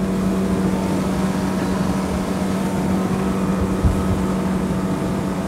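Motorboat running at speed: a steady engine drone under a rush of wind and water. A single low thump comes just before four seconds in.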